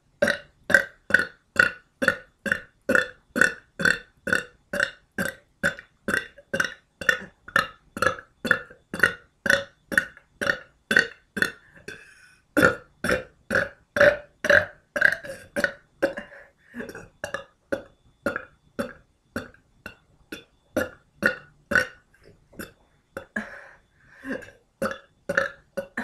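A woman burping over and over in a fast, even string of short burps, about two or three a second. There is a brief break about twelve seconds in, and the burps come less evenly towards the end.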